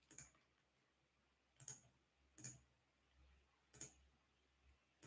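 Five faint, sharp computer mouse clicks spaced about a second apart, with near silence between.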